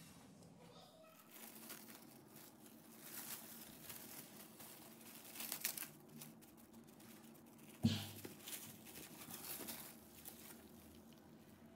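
Plastic cling film crinkling and rustling as it is spread and pressed down by hand over a tray, with a single sharp knock about two-thirds of the way through.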